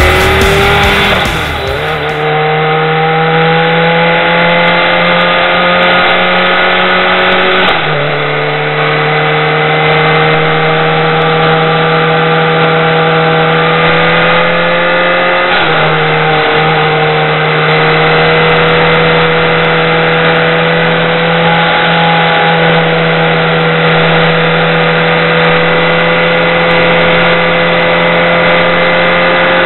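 BMW K1200R's inline-four engine pulling through the gears: its note climbs slowly as it accelerates and drops sharply at three upshifts, about a second and a half in, around eight seconds and near sixteen seconds. Steady road and wind noise from the ride sits under it.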